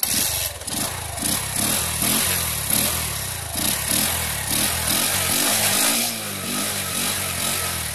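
Bajaj Platina motorcycle's single-cylinder four-stroke engine running and being revved up and down, loud and raspy with its air-filter intake pipe removed so it draws air straight into the filter, a mod the owner calls a sports bike sound.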